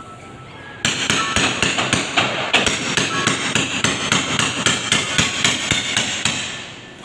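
A hammer striking a fitting in the ceiling: a fast run of sharp knocks, about five a second, starting about a second in and stopping shortly before the end.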